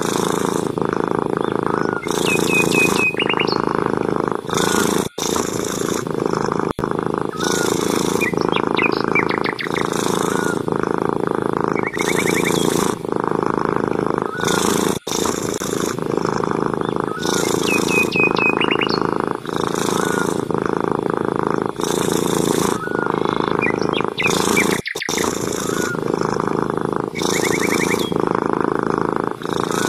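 A long-haired grey tabby cat purring steadily, the rumble changing about every two seconds with each breath in and out. Small birds chirp now and then in the background.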